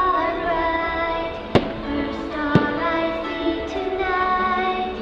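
Fireworks show soundtrack music with singing, over which two sharp firework bangs go off about a second apart, near the middle.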